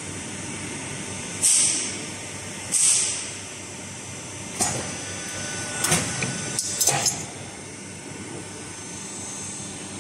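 Hydraulic steel tube end forming machine: its power unit runs with a steady hum, the hydraulics give two short hisses about a second and a half and three seconds in, then a few sharp metal clanks follow as the steel tube is set into the notching die.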